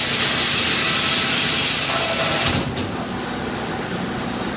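Circular sawmill running, its large blade and log carriage making a loud, steady mechanical din with a high hiss; the din drops somewhat about two and a half seconds in.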